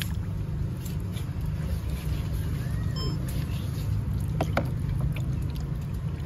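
A steady low rumble with scattered light clicks and knocks.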